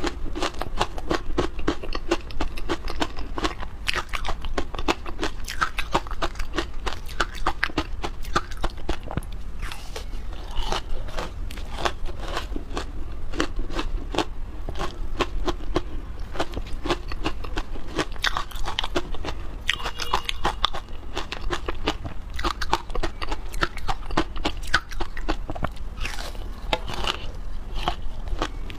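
Frozen matcha milk-powder ice being bitten and chewed close to a clip-on microphone. It makes an unbroken run of sharp crunches and cracks as the ice breaks between the teeth.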